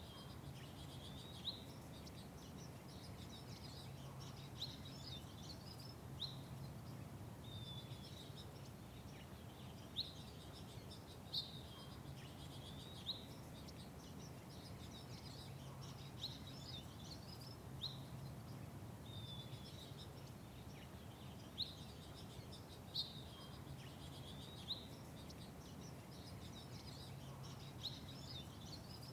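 Small birds chirping: short, sharp chirps every second or two, some sliding down in pitch, over fainter twittering, with a steady low hum underneath.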